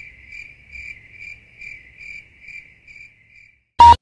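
Cricket chirping in an even pulse, a little over two chirps a second, fading out near the end. Just before the end there is a single loud, brief click.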